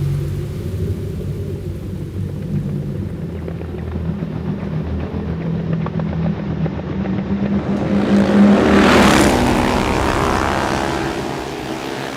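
Vehicle engine running, with a vehicle passing close by and growing loud to a peak about nine seconds in before fading away.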